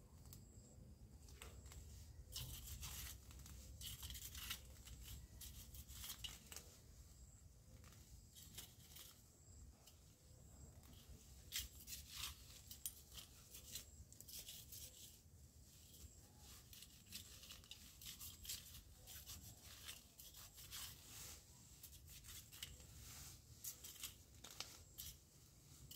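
Faint, irregular rustling and tearing of garden plants being handled, over a low steady rumble.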